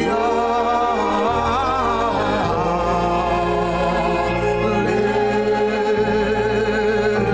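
Slow worship music: long sustained keyboard chords with a singing voice holding long, wavering notes over them.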